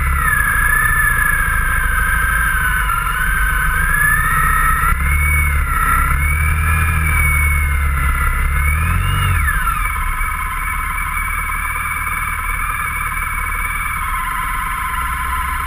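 Touring motorcycle heard from on board at low speed: engine hum with a whine that rises and falls with the throttle. About nine and a half seconds in it drops to a steady, slightly quieter idle as the bike comes to a stop.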